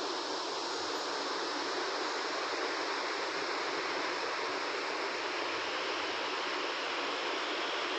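Steady, even rushing hiss that holds at one level throughout, with no clicks or changes.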